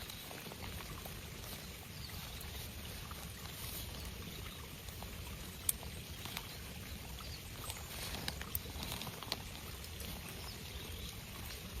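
Steady rain pattering in a forest, with scattered sharper drop ticks over a low rumble.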